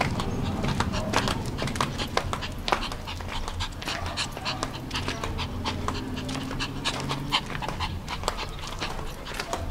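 Shih Tzu panting in quick, close breaths as it trots on a leash, with frequent short clicks among the breaths.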